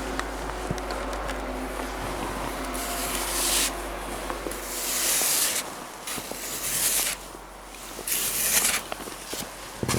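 Heavy wet snow crunching and scraping in several bursts about a second long each, over a low steady rumble that stops about halfway through.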